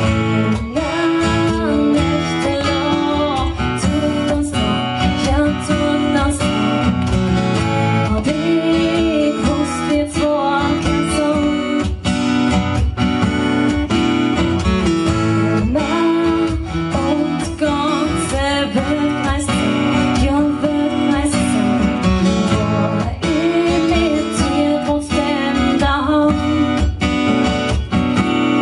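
Live acoustic music: two acoustic guitars strummed and picked together while a woman sings into a microphone.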